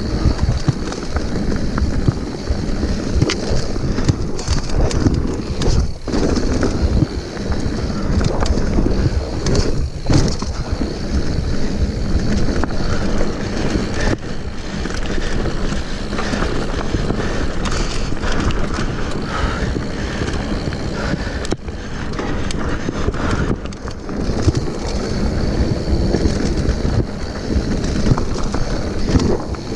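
Mountain bike descending rocky singletrack at speed: wind buffets the microphone while the tyres crunch over loose rock and gravel. The bike knocks and rattles over the bumps throughout.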